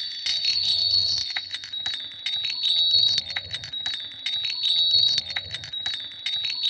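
Steady high, chime-like ringing tones over an irregular crackle of clicks, with a faint low hum beneath.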